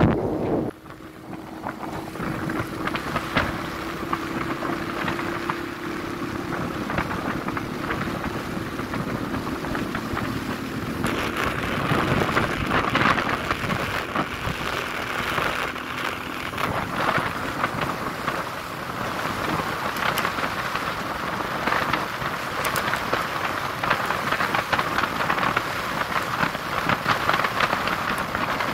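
Motor scooter on the move: a steady rush of wind and road noise on the microphone, with a faint steady hum of the small engine underneath. The rush grows louder about eleven seconds in.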